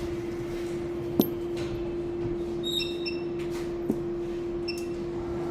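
Spark plugs being handled, giving two sharp clicks and a few light metallic clinks, over a steady hum.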